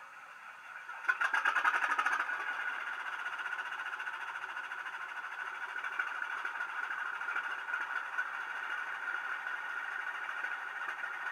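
Diesel engine sound from the DCC sound decoder in a Heljan model of the North British diesel 10800, played through the model's small speaker. A rapid clatter comes about a second in, like the engine firing up, then it settles into a steady idle.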